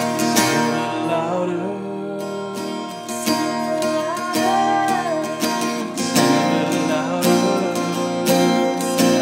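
Two acoustic guitars strumming a slow worship song, with several voices singing along.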